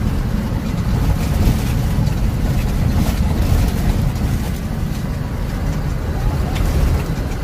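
Steady low drone of a moving truck's engine and road noise, heard from inside the cab.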